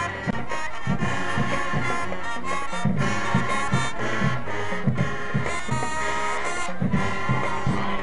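Marching band playing an upbeat tune: brass over a driving line of short, punchy low-brass bass notes repeating several times a second.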